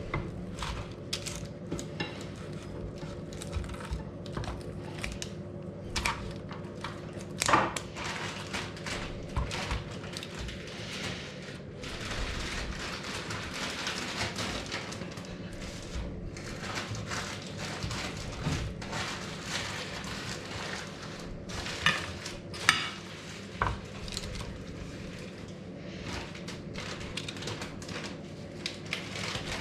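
Kitchen utensils and dishes clinking and knocking irregularly, with a few louder knocks, over a steady low hum.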